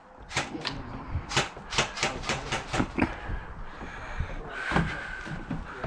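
Airsoft guns firing: a quick, irregular run of sharp cracks, about a dozen in the first three seconds, then fewer.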